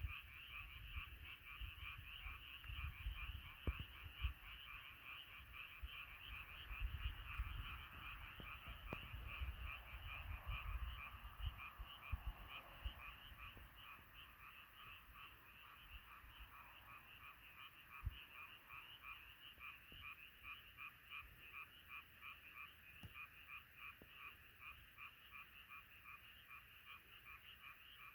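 A chorus of many frogs croaking, a dense, unbroken run of rapid pulsed calls, faint overall. A low rumble sits under the first half.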